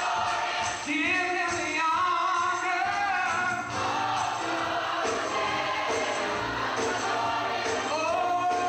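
Gospel choir singing over instrumental accompaniment with a steady beat.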